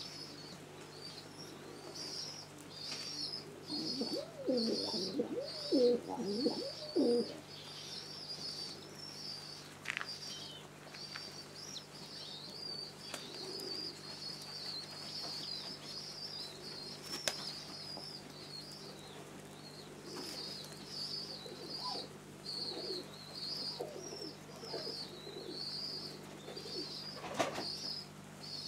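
Domestic pigeons cooing, loudest about four to seven seconds in and softer later, with a few wing claps and flaps from the flock feeding on grain. A high chirping repeats over and over behind them.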